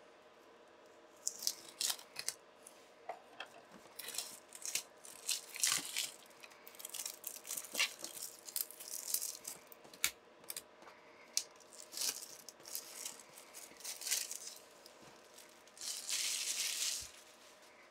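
Plastic shrink wrap being cut and peeled off a cardboard software box: irregular crinkles and crackles, with a longer stretch of crinkling near the end.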